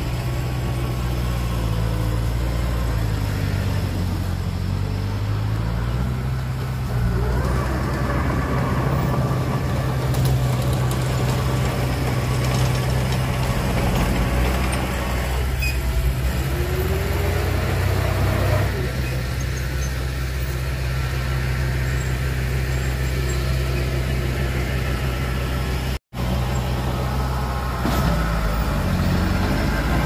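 Heavy diesel engine of construction machinery running steadily, its note dipping and rising now and then. The sound cuts out for an instant near the end.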